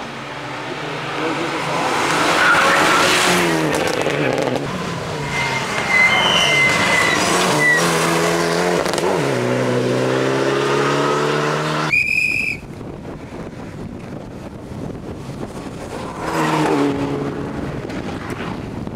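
Rally car engines revving hard and shifting up and down through the gears, with a brief high squeal about six seconds in. The sound cuts abruptly about twelve seconds in to a quieter stretch, where another rally car passes and its engine note drops.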